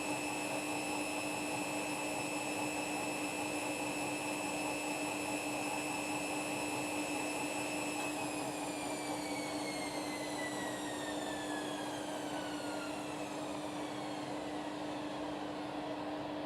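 Washing machine spinning at high speed with a steady high-pitched motor whine over a hum; about halfway through the whine starts falling steadily in pitch as the drum slows down from the spin.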